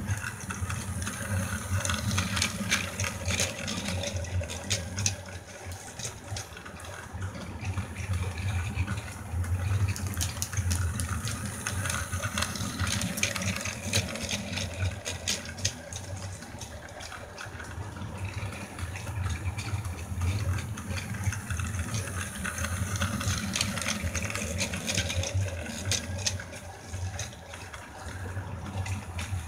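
Plarail-type battery toy train running around a plastic track loop: a small electric motor whirring steadily while the wheels and couplings rattle on the plastic rails, getting louder and quieter as it goes round.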